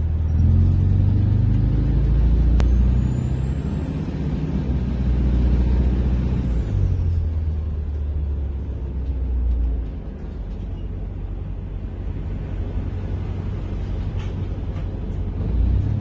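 Detroit Diesel engine of a Flxible Metro transit bus running without an exhaust tip, heard from inside the cabin: a deep rumble that pulls hard with shifting pitch for the first several seconds, with a thin high whine rising and holding. After about ten seconds it settles to a lower, steady drone.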